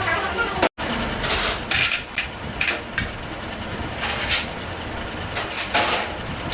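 Workshop noise: a run of short knocks and scrapes over a steady low rumble, with a brief break to silence about a second in.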